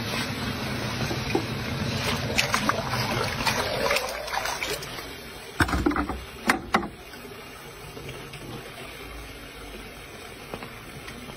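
Steady rushing of the gas burner flame heating the crucible of molten gold, dropping to a quieter rush about four seconds in. A few sharp knocks come around the middle.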